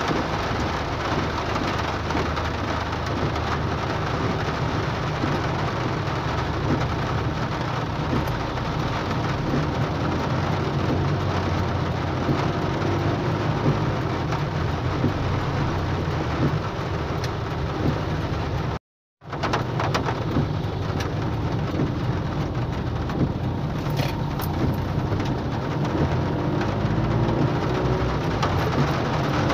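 Hard rain hitting a car, heard from inside the cabin as a dense, steady hiss, with a steady low rumble from the moving car underneath. The sound cuts out completely for a moment about two-thirds of the way through.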